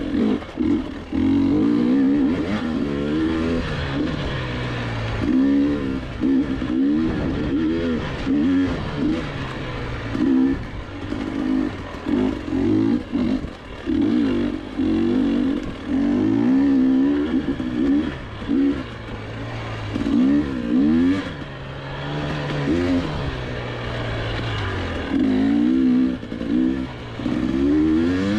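GasGas EC300 single-cylinder two-stroke dirt bike engine revving up and down in quick bursts, heard from the rider's seat. The pitch rises and falls every second or two as the throttle is opened and closed.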